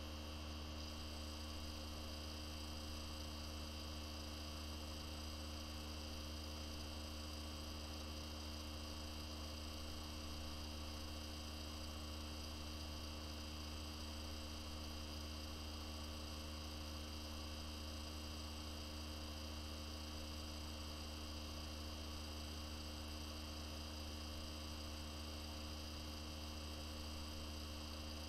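Steady electrical hum: a low drone with several fainter steady tones above it, unchanging, with no other sound.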